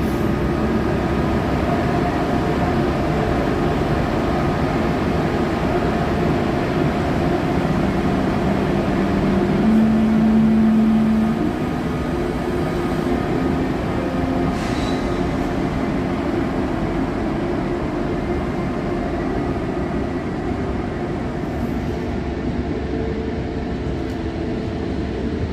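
Train running through the station: a steady rolling rumble, with a motor hum that steps up in pitch about eight to eleven seconds in.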